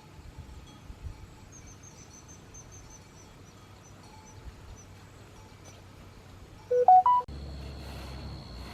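Three short electronic beeps stepping up in pitch, one right after another, loud against a quiet background, near the end. Before them faint high chirps repeat; just after them a steady high whine and a low hum come in abruptly.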